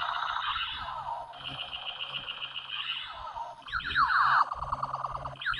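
Battery-powered toy laser gun with a spinning light-up disc playing its electronic sound effects. A buzzing, warbling tone comes first, then a high beeping pattern, and from about four seconds in a quick series of falling "pew" laser zaps.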